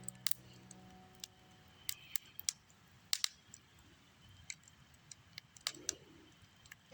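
Campfire crackling: irregular sharp pops and snaps of burning wood, about a dozen spread unevenly over a low background hiss.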